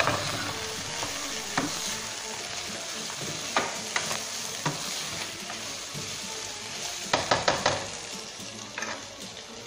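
Macaroni, chicken and vegetable stuffing sizzling in a non-stick frying pan as a spatula stirs and turns it. Now and then the spatula knocks sharply on the pan, with a quick run of knocks about seven seconds in.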